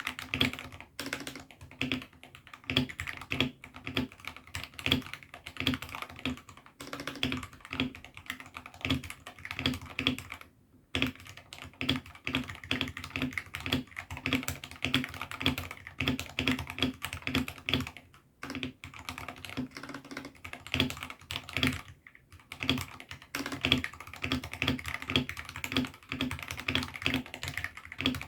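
Continuous fast typing on a 68-key hot-swappable mechanical keyboard fitted with AKKO Sakura switches: a dense run of keystroke clacks, broken by a few short pauses.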